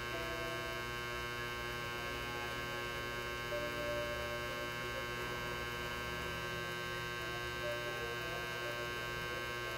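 Steady electrical mains hum: a low buzz with a stack of even overtones.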